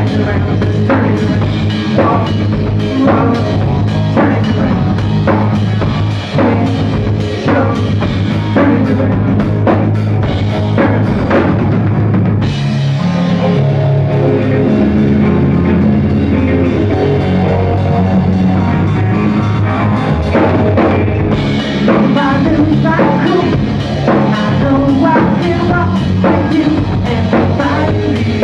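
Live rock band playing an instrumental passage on drum kit and electric guitars. The drumming thins out for a stretch in the middle while the guitars ring on, then the full beat comes back.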